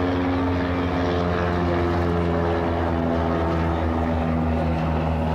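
Motorboat engine droning steadily at close range, its pitch sinking slowly.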